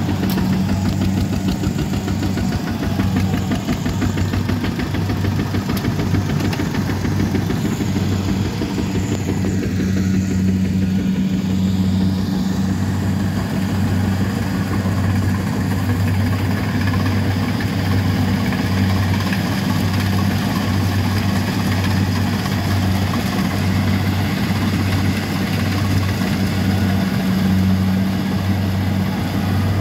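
Farm diesel engine running steadily, with a low, even beat.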